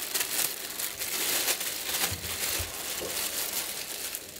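Thin plastic bag crinkling and rustling as it is handled, in irregular crackles.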